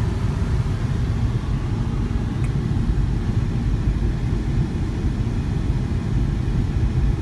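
Steady low rumble of road and engine noise inside the cabin of a moving Volvo car.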